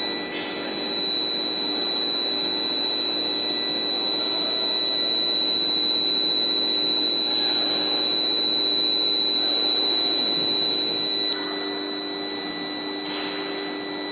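Induction heating furnace running, with a steady high-pitched whine over a lower hum. About eleven seconds in the whine drops in level and a higher tone joins it, with a few short hissing noises now and then.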